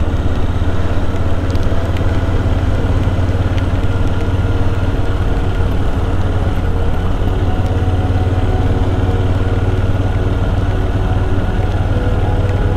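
Kawasaki VN1500 V-twin engine running at a steady cruising speed with no change in revs, under a constant rush of wind and road noise.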